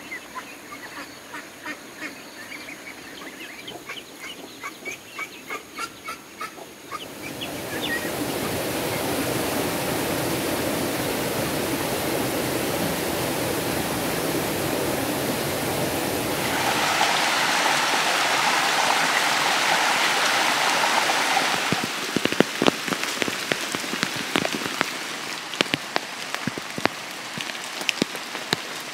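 Ducks quacking in short repeated calls, then a steady rush of heavy rain that grows louder for several seconds before thinning to scattered drips and patters.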